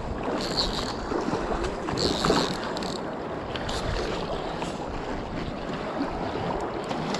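Fast-flowing river water rushing, with wind on the microphone and the rubbing of a gloved hand against the camera.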